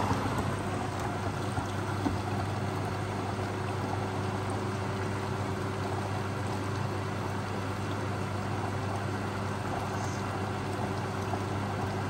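BEKO WMB81341LS washing machine running, a steady hum with water moving and gurgling inside it.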